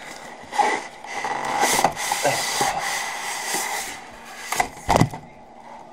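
Cardboard box and packing material being handled, with rubbing and scraping, then a single dull thump near the end.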